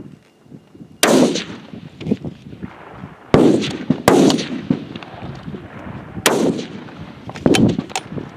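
F-Class target rifles firing on the 600-yard line: about five sharp shots at uneven intervals, each followed by a rolling echo that dies away over a second or so.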